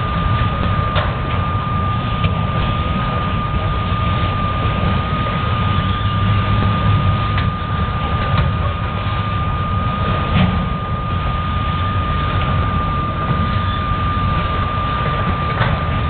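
CSX auto train of autorack freight cars rolling past, a steady low rumble with a few sharp clanks. A thin, steady high-pitched tone holds over it throughout.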